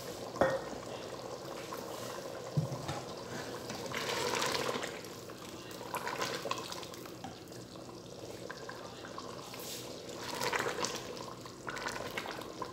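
Wooden spoon stirring a thin black-chickpea curry in an open pressure cooker pot: liquid sloshing in several passes, with two knocks in the first three seconds.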